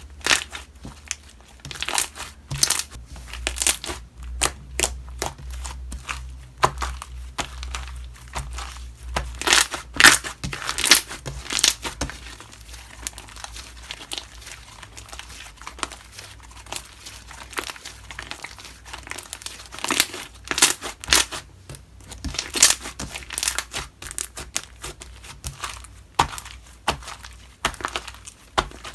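Slime being squished, pressed and stretched by hand, giving irregular crinkly clicks and pops in clusters.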